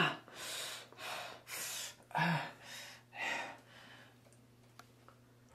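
A man gasping and breathing hard in pain, about six heavy breaths with a short voiced groan in the middle. The breathing stops about three and a half seconds in.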